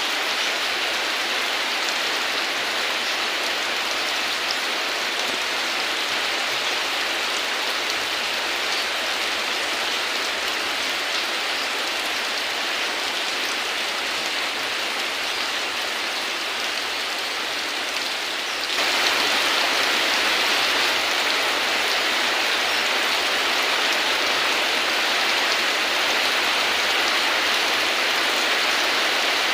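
Heavy rain falling steadily as an even hiss of drops. About two-thirds of the way in, it turns abruptly louder and fuller, as at a splice into another rain recording.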